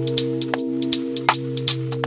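Background music: held chords with a light, ticking percussion beat.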